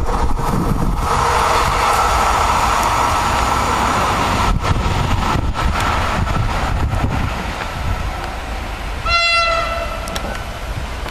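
Electric commuter trains on an electrified line: running noise with a steady whine that fades out over the first seven seconds. About nine seconds in, one short, single-note horn blast sounds from the approaching electric multiple unit.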